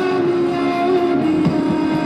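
Music playing for a dance: a gliding melody line over sustained accompaniment.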